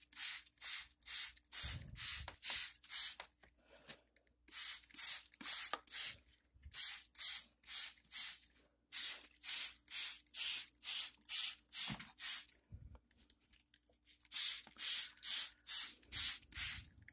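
Hand trigger spray bottle misting water onto plant leaves: rapid short hissing squirts, about two to three a second, in runs broken by a few brief pauses.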